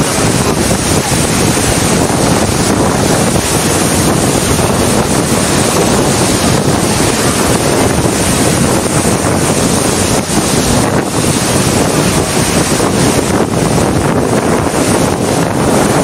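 Whitewater rapids rushing steadily and loudly, heard from a raft in the river, with wind buffeting the microphone.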